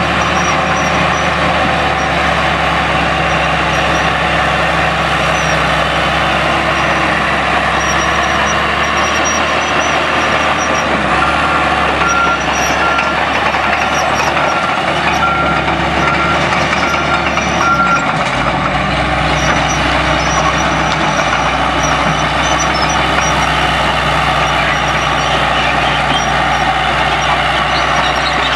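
Caterpillar D4H Series II crawler dozer's diesel engine running steadily under load as it pushes gravel. A back-up alarm beeps repeatedly for several seconds in the middle.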